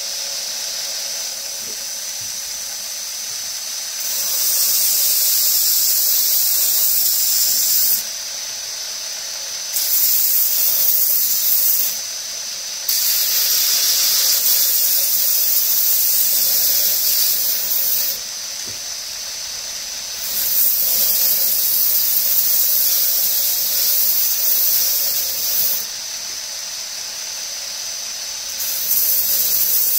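Belt grinder running with a steady high whine while G10 knife scales are ground on the contact wheel. The grinding comes in about five passes of a few seconds each, each adding a loud high hiss that drops away when the scales are lifted off the belt.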